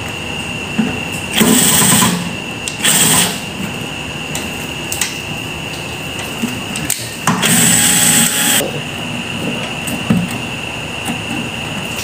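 Cordless drill-driver running in three bursts as it drives screws into a microwave oven's sheet-metal chassis: two short runs in the first few seconds and a longer one about seven seconds in. A steady high whine runs underneath.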